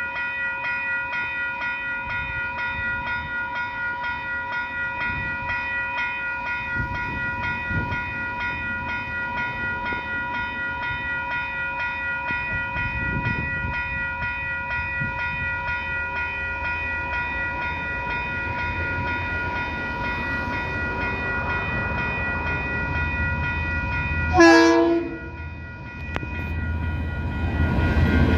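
Level crossing alarm bells ringing in quick, even strokes while a diesel freight train approaches. About 24 seconds in, the leading KiwiRail DXC-class (GE U26C) diesel-electric locomotive gives a short, loud horn blast. Near the end the rumble of its engine and wheels grows loud as it reaches the crossing.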